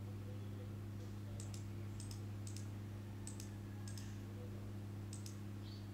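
A handful of sharp computer mouse clicks, several in quick pairs, from about a second and a half in, as a resistor is picked and placed in a circuit-drawing program. Under them runs a steady low electrical hum.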